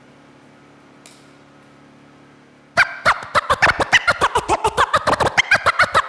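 Vinyl record scratched by hand on a DJ turntable: after a low steady hum, a fast run of chopped scratches sets in a little under three seconds in, many strokes a second, each sliding up or down in pitch.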